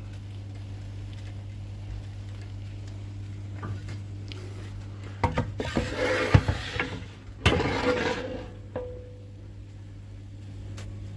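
Metal kitchenware clattering for a few seconds in the middle: a series of knocks and rattles, with a short ring at the end. A steady low hum runs underneath.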